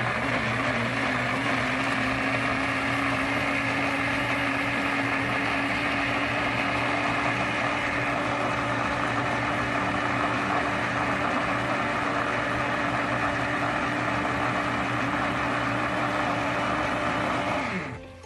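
Electric blender running, pureeing red pepper, hot pepper, garlic and tomato. The motor's pitch wavers for the first couple of seconds as the vegetables break up, then holds steady; near the end the motor winds down and stops.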